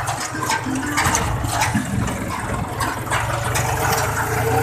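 John Deere tractor's diesel engine running steadily while the tractor drives on a dirt track, with a constant low rumble and frequent rattling and clattering from the tractor's body and fittings.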